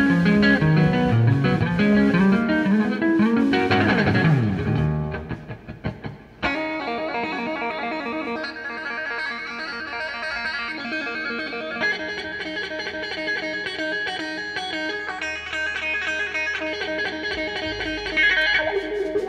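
Live electric guitar solo in a blues-rock band. Quick moving notes in the first few seconds lead into a swooping pitch dive about four seconds in that fades away. About six seconds in, a held passage of ringing, sustained notes starts suddenly and carries on.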